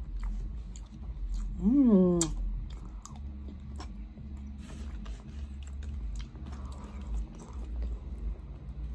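Close-up chewing and lip-smacking of a mouthful of butter chicken and rice, with scattered small clicks. About two seconds in, a short hummed "mm" rises and falls in pitch.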